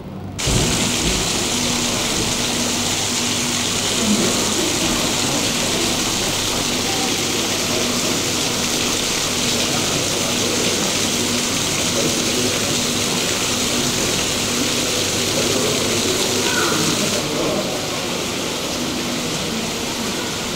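Steady rush of running water, with faint, indistinct voices beneath it; the rush drops a little and sounds duller near the end.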